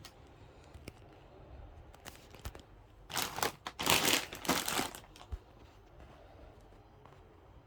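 Crinkling of plastic snack packets being handled, a couple of seconds of rustling about halfway through, after a few light clicks.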